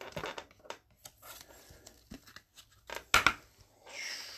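Trading card being slid into a rigid plastic toploader and handled: a run of light clicks and scrapes of card on plastic, with two louder clicks about three seconds in and a short sliding rush near the end.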